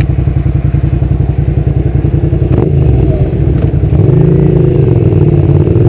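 Suzuki SV650's V-twin engine running as the motorcycle is ridden, with a steady pulsing note that begins to rise and fall gently in pitch about two-thirds of the way through.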